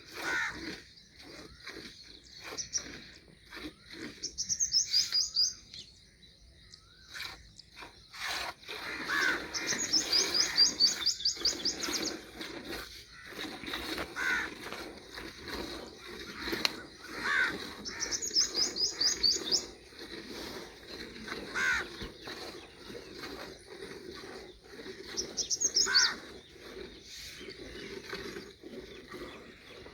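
Birds calling: a high, rapid twittering series repeated every few seconds, with short falling calls in between. A low steady hum comes in underneath about nine seconds in.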